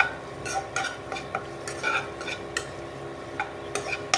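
Spatula scraping and stirring through chicken and vegetables frying in a non-stick pan, with irregular scrapes about twice a second over a light sizzle of hot oil.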